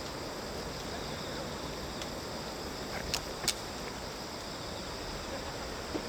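Steady outdoor background noise, with two short sharp clicks about three seconds in.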